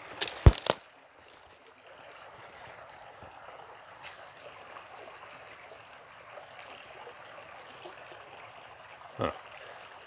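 Shallow creek water flowing steadily over a sandy bed. A few sharp knocks come about half a second in, with another short knock just after nine seconds.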